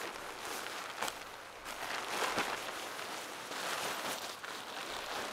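Rustling of a Gore Windstopper down sleeping bag's shell fabric, swelling and fading as the bag is handled and pushed into a tent, with a couple of short clicks.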